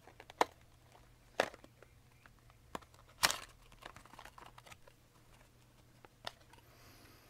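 Scattered handling sounds of a candle and its wrapping: soft crinkling with a few separate sharp clicks and taps, the loudest about three seconds in.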